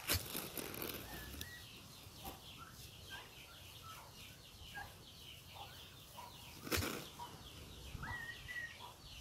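Domestic turkeys calling with short, high whistled peeps, one held a little longer near the end. Twice there is a brief rustling whoosh of feathers from the strutting tom turkey: once at the start and more loudly about seven seconds in. Faint small bird chirps run underneath.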